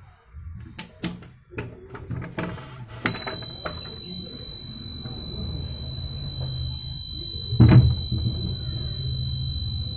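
Knocks and clicks of the door being handled, then about three seconds in a homemade door alarm's buzzer switches on with a steady high-pitched tone: the door has opened and released the alarm's switch. A loud thump comes about three-quarters of the way through while the buzzer keeps sounding.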